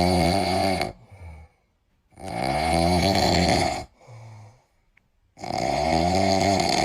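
A man snoring loudly in long, rasping snores, about one every two and a half to three seconds, with short quieter breaths between them.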